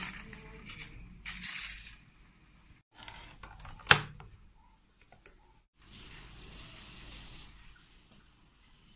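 Rustling and handling noise as a steamed pudding bowl is uncovered and turned over, then a single sharp knock about four seconds in as the upturned bowl is set down on the plate.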